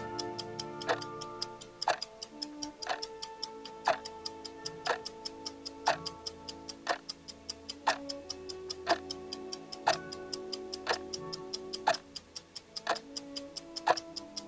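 Clock ticking sound effect, two ticks a second with a louder tick on each second, over soft music with held notes.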